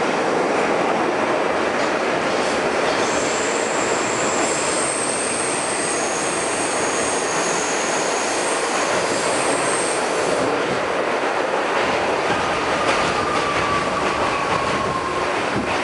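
An R68 subway car with Westinghouse propulsion running through a tunnel, heard from inside: a loud, steady rumble of wheels on rail, with high-pitched squealing from about three to ten seconds in. Near the end a tone slowly falls in pitch as the train slows into a station.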